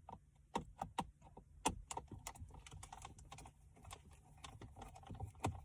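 A Phillips screwdriver working a small screw out of a car's plastic dashboard trim: a string of irregular light clicks and ticks.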